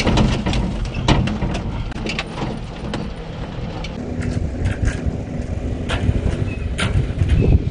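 Daihatsu Hijet mini-truck's 660cc engine running under load as it drives over rough sand, with many sharp knocks and bumps throughout.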